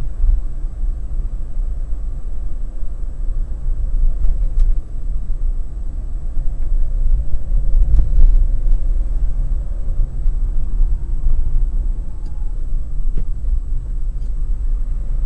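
Car cabin noise while driving: a steady low rumble of engine and road heard from inside the car.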